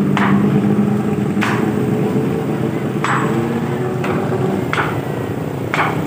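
Steel reinforcing bar being struck five times at uneven intervals, sharp metallic clanks with a brief ring, as the rebar cage is adjusted. A steady low rumble of machinery runs underneath.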